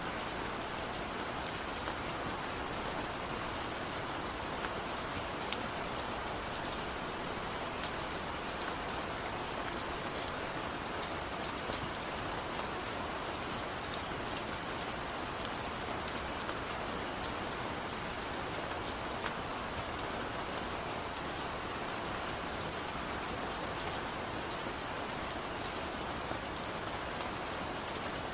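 Steady rain falling, an even hiss with scattered drop ticks on hard surfaces.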